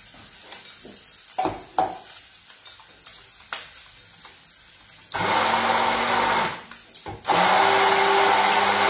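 Kitchen tap running into the sink, a steady rush of water with a low hum, starting about five seconds in, cutting off briefly and starting again. A few light utensil clicks come before it.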